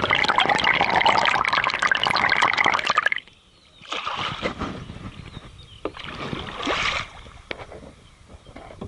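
Kayak paddle strokes splashing and water trickling off the blade. The splashing stops suddenly about three seconds in, then returns in two shorter bursts.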